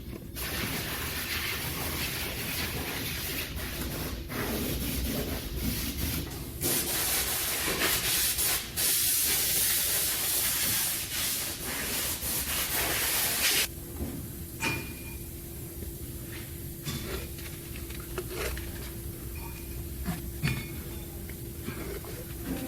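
A loud, steady hiss of spraying gas or liquid for about thirteen seconds, growing stronger and brighter about halfway through, then cutting off. After that there is a quieter steady hum with a few light clicks.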